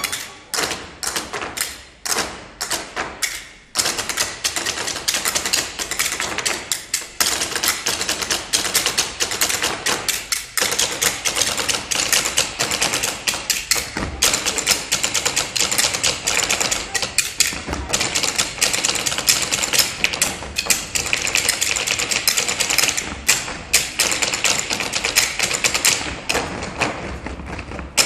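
An ensemble playing percussion on tabletops, many quick taps and knocks in rhythm. Separate sharp knocks with short gaps open it, and about four seconds in it becomes a dense, fast, continuous patter, thinning again near the end.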